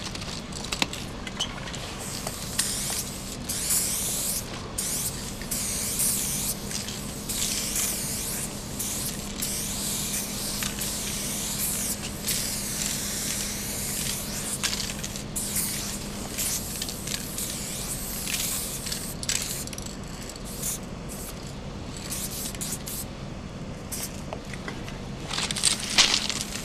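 Aerosol spray paint cans hissing in repeated bursts of varying length as graffiti is sprayed, the bursts coming thicker and louder near the end. A steady low hum runs underneath.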